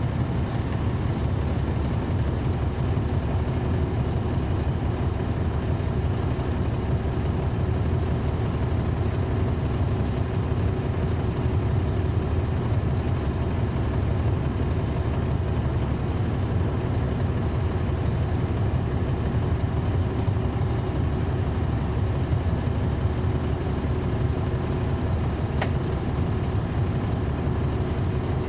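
Caterpillar C13 ACERT diesel engine of a NABI 40-SFW transit bus running with a steady low rumble, heard from inside the bus near the rear. A brief faint click near the end.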